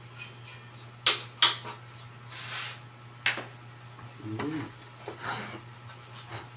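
Small hard parts handled on a workbench: several sharp clicks and knocks, with short rubbing or brushing sounds between them, over a steady low hum.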